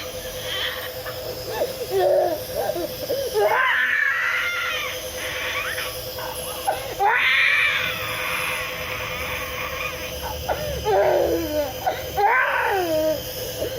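A young child crying in three bouts a few seconds apart, each a high, wavering cry, with a steady hum running underneath.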